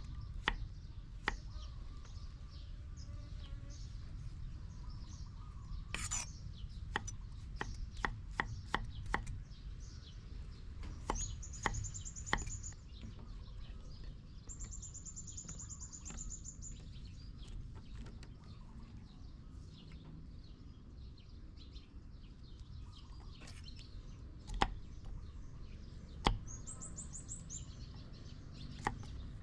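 A knife chopping on a cutting board in irregular strikes, with a quick run of chops around eight seconds in and two single louder knocks near the end. A bird gives a high, rapid trill three times in the background.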